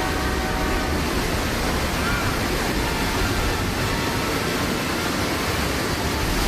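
Steady rush of a large volume of water: the flash-flood effect pouring from overhead tanks down the staged canyon.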